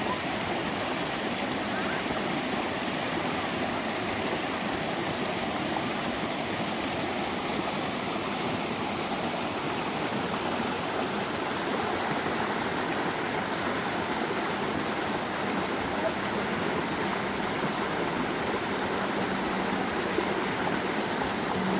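Mountain stream with steady, even rushing water that does not let up.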